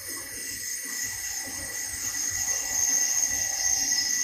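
Doosan CNC lathe spindle turning a tapered workpiece while the tool cuts its end: a steady machining whine with a high tone that slowly falls in pitch and grows louder about halfway through.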